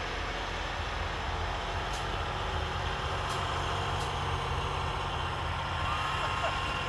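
A motor vehicle running steadily on a snowy street with a low rumble, and a few faint clicks in the middle.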